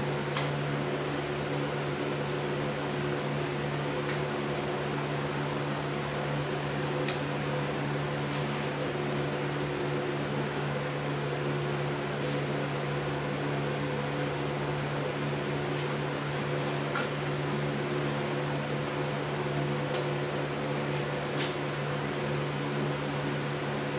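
A steady machine hum, with about ten faint metal clicks scattered through it from piston rings being spread with ring-expander pliers and fitted onto a piston.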